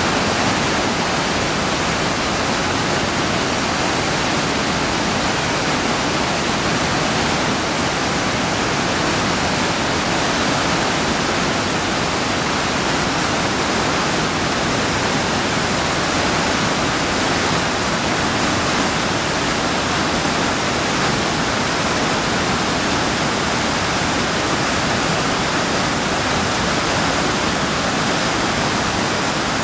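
River whitewater cascading over rock ledges at the upper drop of a waterfall: a steady, even rush of falling water that does not change.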